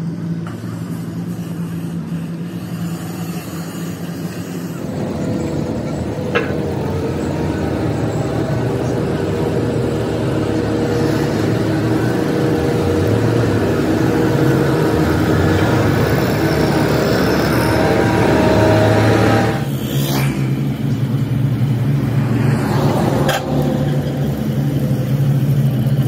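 Diesel engines of road rollers running steadily while they compact fresh asphalt, with a low, even engine hum. The sound changes abruptly about 5 seconds in and again near 20 seconds, getting louder and busier in between.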